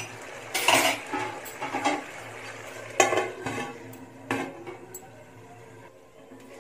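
A metal spoon stirring and scraping half-cooked rice in a large metal pot, then a metal lid set on the pot to seal it for dum steaming, with several sharp metallic clanks.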